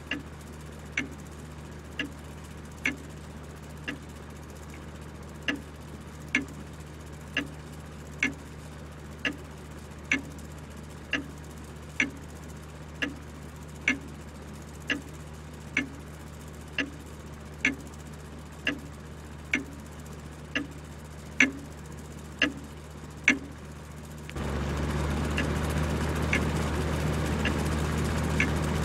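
Clock ticking about once a second, evenly, over a steady low hum. About 24 seconds in, a louder steady whirring comes in under the ticks: a ceiling fan running.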